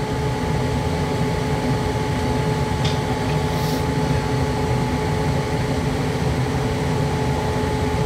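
High-efficiency condensing gas furnace firing with its burners lit: a steady low rumble with a constant whine, while the circulating blower has not yet started.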